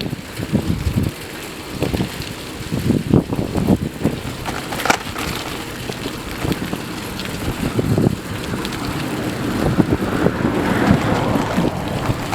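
Wind buffeting the microphone in irregular gusts, with low rumbling thumps.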